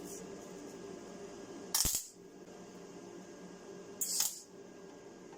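Two short bursts of hissing noise, about two seconds apart, over a steady low hum from workshop equipment.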